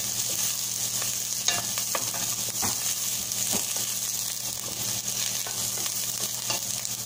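Chopped onions sizzling in a little oil in a stainless steel pot while a wooden spoon stirs them, with irregular scrapes and taps of the spoon against the pot. The onions are being sautéed until translucent. A steady low hum runs underneath.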